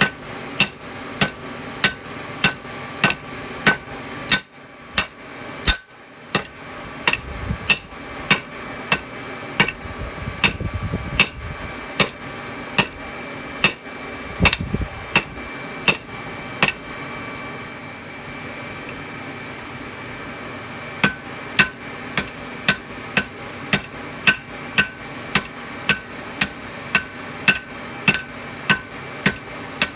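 Hand hammer striking hot steel on an anvil in a steady rhythm of about three blows every two seconds, each blow ringing: a ball peen hammer head being forged into a hatchet. The blows stop for about four seconds past the middle, then resume.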